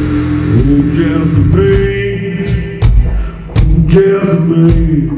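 Live blues-rock band playing: a male voice sings long held notes over guitar and bass, with drum and cymbal hits marking the beat.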